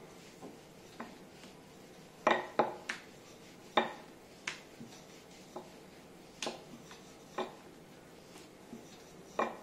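Wooden rolling pin knocking and clacking against a rolling board while dough is rolled out into thin rounds: about a dozen sharp, irregularly spaced knocks, the loudest a few seconds in.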